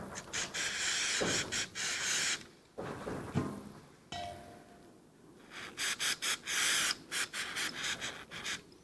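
Aerosol cleaner sprayed onto a carbon-fouled throttle body and butterfly: a hissing burst of squirts, a few knocks and a short metallic ring in the middle, then a second run of short squirts near the end.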